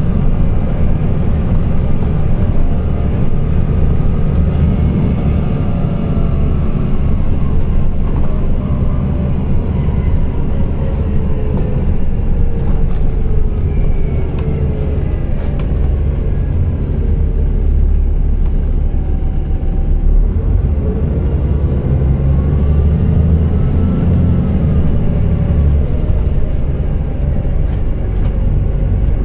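Volvo B7TL double-decker bus heard from inside the passenger saloon while on the move: a steady diesel engine and road rumble, with pitched drive tones that slowly rise and fall as the bus speeds up and slows.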